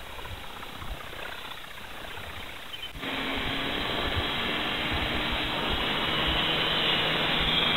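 RC scale autogyro model's motor and rotor heard faintly while it flies off in the distance, with low wind thumps. About three seconds in, the sound jumps to a louder, steady rushing drone with a low hum.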